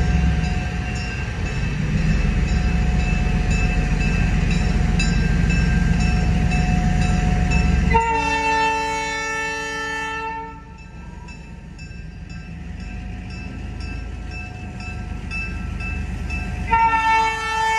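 Locomotive air horn sounding for the grade crossing: one blast of about two and a half seconds starts about eight seconds in, and a second blast begins near the end. Before the first blast there is a loud low rumble.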